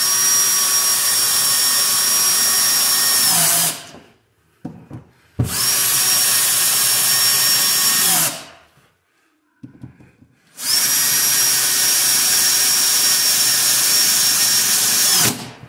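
Cordless drill drilling into the plastic flange of an RV skylight, in three runs of a few seconds each at a steady speed. Each run winds down as the trigger is let go.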